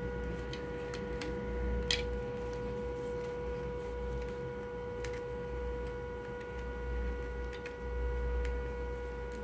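Steady electronic whine at one pitch with overtones, from the battery charging and balancing electronics at work, with a few faint clicks as meter probes and leads are handled.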